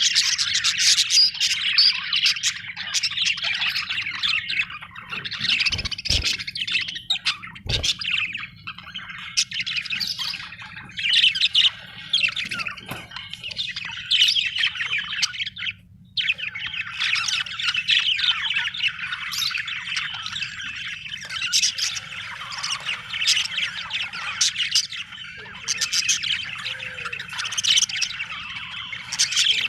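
Budgerigars chirping, warbling and squawking in continuous dense chatter, with a brief pause about halfway through. Two short low thumps come about a quarter of the way in.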